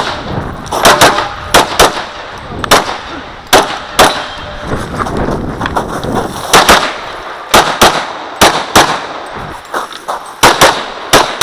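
Glock 35 .40 S&W pistol fired in quick pairs of shots, a stage of rapid fire with a pause of about two seconds in the middle.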